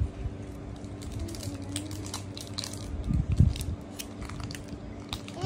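Paper wrapper of an Amul chocolate bar crinkling and crackling in a child's hands as it is pulled open, with a dull low thump about three seconds in.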